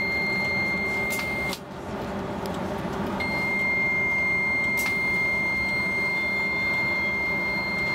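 Stockholm commuter train's door warning tone: a steady high beep that stops about one and a half seconds in, then starts again about three seconds in and holds. Under it runs the low steady hum of the standing train.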